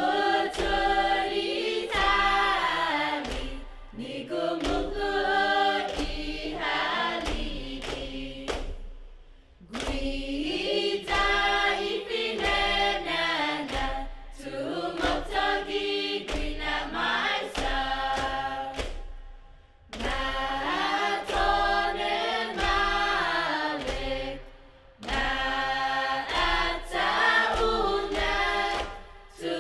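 A group of voices singing a chant in phrases of about five seconds with short breaks between them, over sharp percussive hits.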